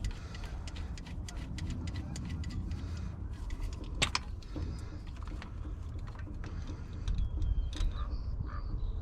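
Wrench clicking and clinking against metal fittings on an excavator while sensors are unscrewed, many small clicks with one sharper clank about four seconds in, over a steady low rumble.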